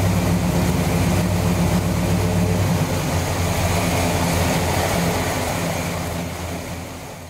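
Chevrolet 454 cubic-inch big-block V8 idling steadily, with a deep, even note. The sound fades out over the last couple of seconds.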